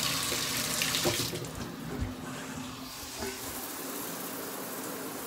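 Water rushing from a bathtub spout into the tub. About a second in, the rush drops and turns quieter as the shower diverter is pulled and the water switches over to the shower head. A few low thumps follow as someone steps out of the tub.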